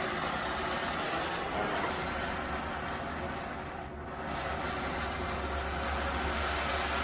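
Lit oxy-acetylene brazing torch burning with a steady rushing noise, which dips briefly about four seconds in.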